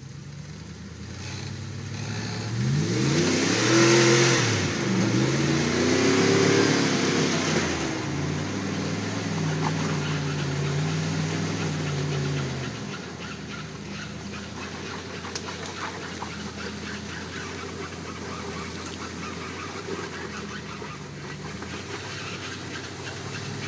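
Dodge Dakota pickup's engine revving hard against the automatic's torque converter to bounce the truck up over a rock. The pitch rises and falls several times, loudest about four seconds in, holds high for a few seconds, then settles to steadier, lower running from about thirteen seconds in.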